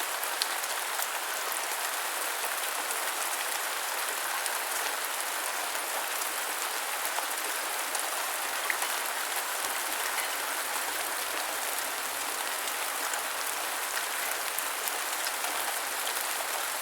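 Steady rain falling: an even, dense hiss of many small drops with scattered sharper drop ticks.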